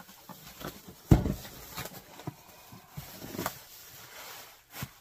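Thin plastic bag crinkling and rustling as it is pulled off a cardboard box, with a dull thump about a second in and a few lighter knocks later.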